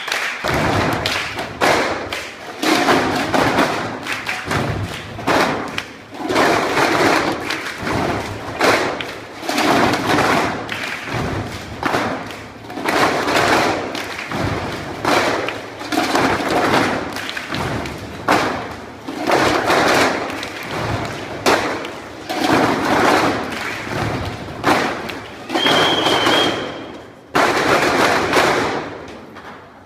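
Group percussion played on tin cans used as drums: a dense rhythmic stream of thuds and taps. A high steady tone sounds for about a second and a half near the end.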